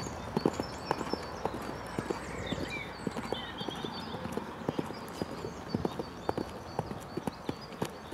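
Hoofbeats of a ridden horse on a dirt arena surface: a steady run of dull thuds, a few each second, at the canter and then the trot near the end.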